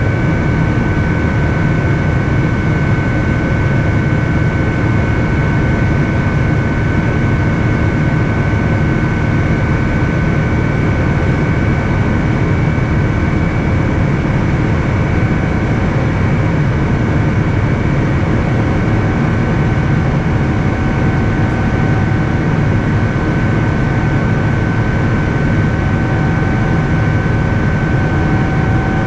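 Boeing 787-10 in flight, heard from inside the cabin beside its Rolls-Royce Trent 1000 engine: a steady low roar with two thin, high whining tones above it. A fainter, lower tone joins about two-thirds of the way through.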